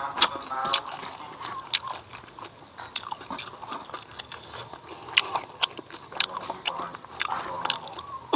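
Close-up mouth sounds of eating by hand: chewing a mouthful of rice and smoked catfish, with wet lip smacks and irregular sharp crunchy clicks every second or so.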